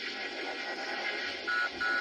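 Proton pack sound board playing through its speaker: a steady electronic hiss-hum, then about one and a half seconds in a fast series of short high beeps starts, about three a second.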